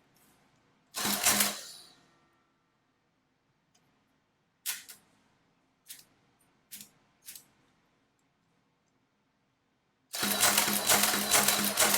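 Clary Model 169 electromechanical adding machine working through a multiplication: one short motor-driven cycle about a second in, a few single key clicks in the middle, then from about ten seconds a continuous rapid clatter with a low motor hum as it cycles over and over on the repeat key.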